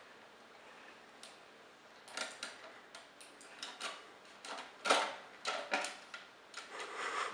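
Plastic disc tray and metal casing of a CD-ROM drive clicking and rattling as a kitten paws at it, in irregular bursts, loudest about five seconds in.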